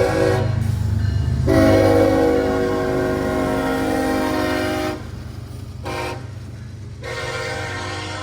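Diesel freight locomotive's air horn sounding the grade-crossing pattern: the end of one long blast, a long blast, a short blast, then another long blast, over the low rumble of the passing train.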